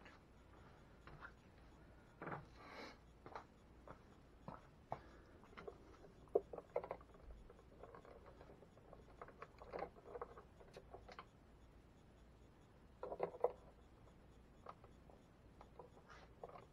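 Faint, irregular clicks, taps and rustling as insulated wires are handled and worked into the terminals of an electrical box, with a few busier clusters of handling noise.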